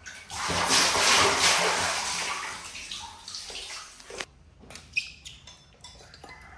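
Water splashing in a plastic basin as a monkey moves about in it. The splashing is loudest in the first two seconds and dies away after about four seconds, followed by a few light knocks.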